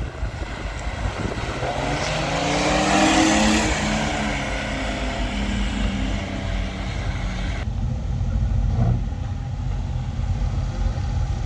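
A classic car driving past, its engine note rising as it approaches and then falling away as it passes, loudest about three seconds in.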